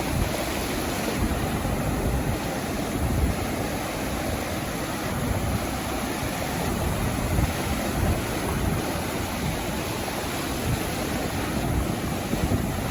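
Sea surf washing continuously onto a beach, an even wash of water with no single wave standing out. Wind buffets the microphone in low gusts throughout.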